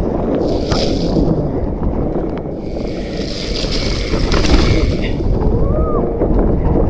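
Wind rushing over an action camera's microphone as a mountain bike rolls down a dirt singletrack, with tyre noise and small rattling clicks from the bike.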